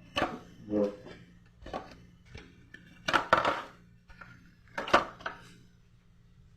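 Food containers and jars being handled and set down on refrigerator shelves: a series of knocks and clatters, the loudest cluster about three seconds in and another about five seconds in.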